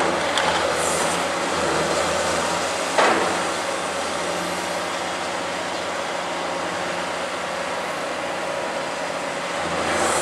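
Caterpillar 345C L hydraulic excavator running steadily, with one sharp metallic knock about three seconds in.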